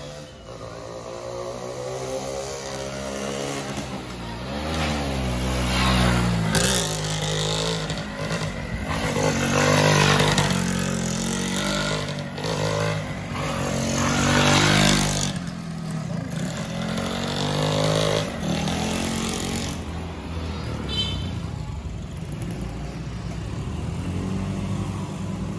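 Race-tuned 116cc underbone motorcycle revving hard through a corner, its engine pitch rising and falling as the rider opens and closes the throttle and shifts gear. It comes loud and close three times.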